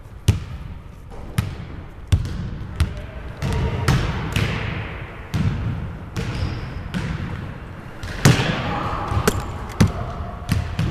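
Basketball bouncing on a hardwood gym floor: a dozen or so sharp, irregularly spaced thuds, some ringing on briefly in the large hall.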